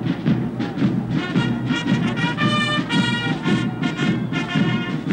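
Brass band music with a steady beat; held brass chords come in about a second in.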